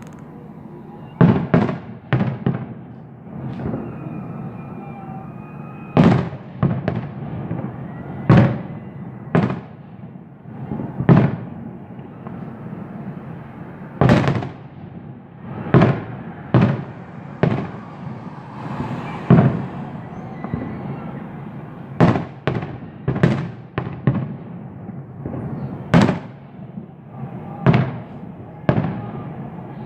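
Fireworks going off: a long irregular run of sharp bangs, roughly one a second, some in quick pairs, over a continuous background of rumbling and crackle.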